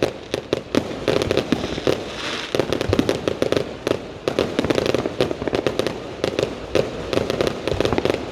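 Fireworks going off in a dense, continuous barrage of rapid cracks and pops with crackling between them.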